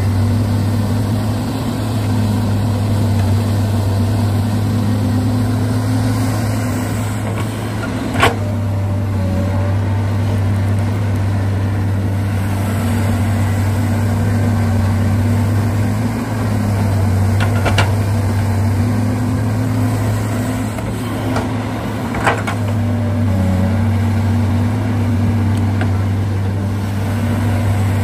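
An excavator runs with a steady motor hum whose pitch wavers slightly, and three short sharp clicks or knocks come at intervals.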